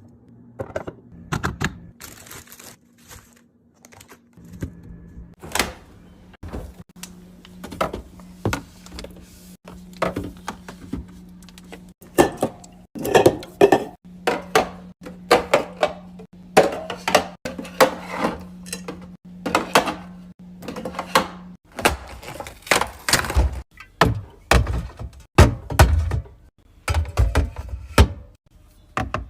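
Food containers and items being handled and set down in a refrigerator: an irregular string of knocks, taps and clunks, sparse at first and denser and louder in the second half. A steady low hum runs through the middle and stops a little past two-thirds of the way in.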